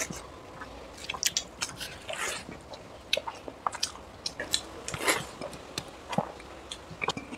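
Close-miked eating sounds of rice and chicken curry eaten by hand: chewing with short, irregular wet clicks and smacks.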